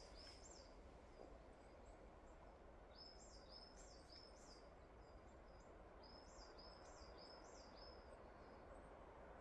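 Near-silent woodland ambience with a small songbird calling faintly: short series of high, rising notes, one at the start, one about 3 seconds in and one about 6 seconds in.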